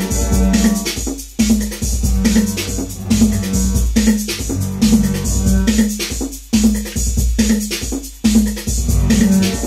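Techno jam: a Roland TR-808 drum machine beat with a steady kick, under Roland Jupiter-6 synthesizer parts played live on the keys.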